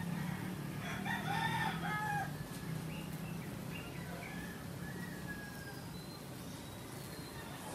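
A rooster crows about a second in, the loudest sound, over a steady low hum of bees buzzing around the tree's blossoms. Faint high bird chirps follow.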